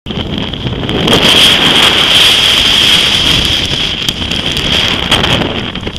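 Strong storm wind buffeting the microphone over rough, breaking sea: a loud rushing noise with a steady high whistle through it. It swells about a second in and eases near the end.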